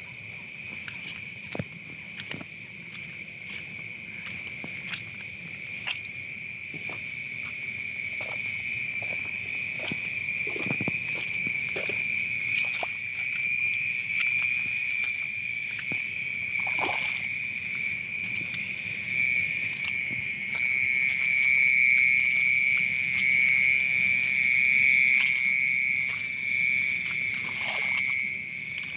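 Night chorus of frogs and insects: a steady high-pitched trill that grows louder about two-thirds of the way through, with a faster, higher pulsing call over it for several seconds in the middle. Occasional short knocks break in.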